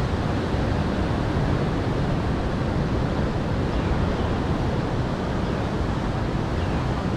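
Steady wind rumbling on the microphone over the wash of surf against the jetty rocks.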